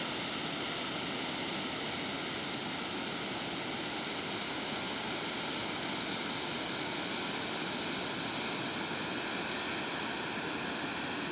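A waterfall rushing: a steady, unbroken wash of falling water.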